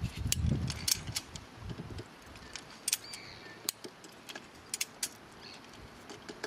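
Strainrite XT1 ratchet wire strainer being cranked with its ratchet handle to tension a fence wire: sharp metallic clicks of the ratchet, uneven, about one or two a second. A low rumble runs under the first two seconds.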